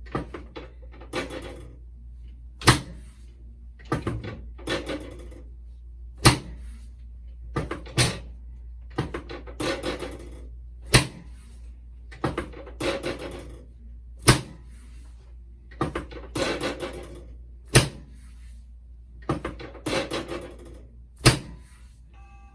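A chiropractic spinal adjustment on a patient lying face down: about seven sharp clicks a few seconds apart, each between short rustling, shuffling sounds of hands and body on the table.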